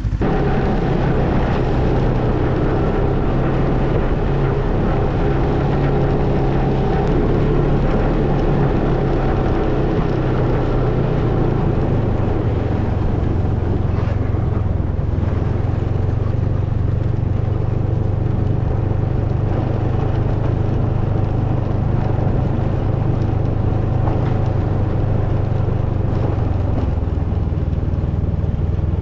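Snowmobile engine running at a steady speed.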